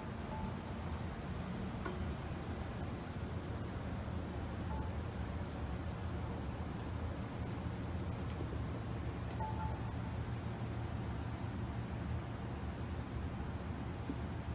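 A steady high-pitched whine over a low even hum, with a few faint short chirps.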